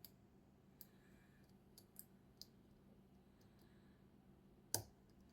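Faint, scattered metallic clicks of a lock pick working the pins inside a KESO 8000 Omega² pin-tumbler lock under tension, with one louder click near the end as a pin sets.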